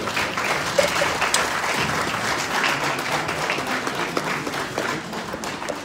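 Audience applauding: a dense, steady patter of many hands clapping that eases off near the end.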